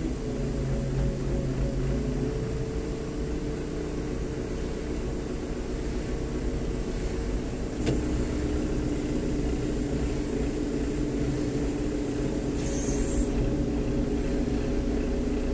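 A crane's engine and hydraulics running steadily under load as it lifts a large steel structure, their hum stepping to a new pitch a couple of times. There is a sharp tick about eight seconds in and a brief hiss near the end.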